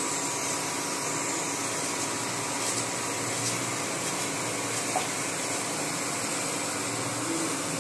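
A kitchen knife slicing an onion on a plastic plate, giving a few faint taps, under a steady background hiss.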